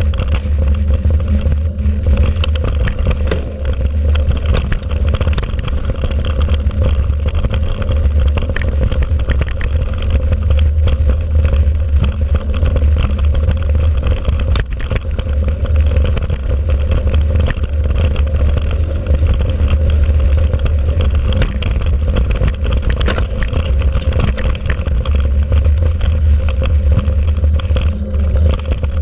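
Mountain bike ridden fast over a bumpy dirt forest track, heard from a camera mounted on the bike: a steady low rumble of wind and vibration on the microphone, with irregular rattling clatter from the bike over the rough ground.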